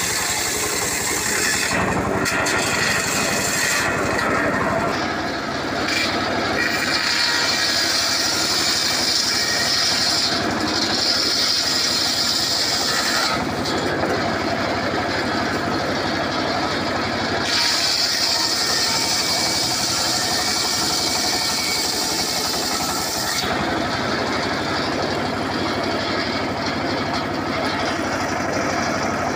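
Homemade circular saw bench running steadily, its blade ripping acacia wood into boards. A higher-pitched cutting whine comes in for a few seconds at a time, three times, while the blade is in the wood, and falls back to the plain running sound between passes.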